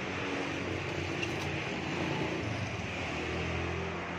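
Steady low engine hum of road traffic, growing a little louder near the end.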